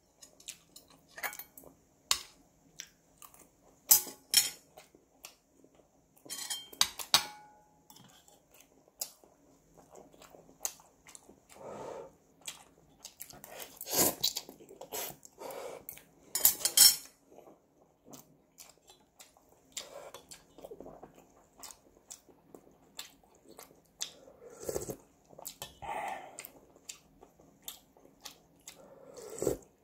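Close-up eating sounds of ramen and inari sushi: chewing and slurping of noodles, with repeated sharp clinks of chopsticks and a metal spoon against the pot.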